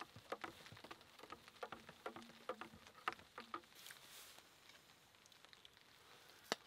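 Faint rain falling, heard as scattered single drops ticking irregularly, thickest in the first few seconds, with one sharper tick near the end.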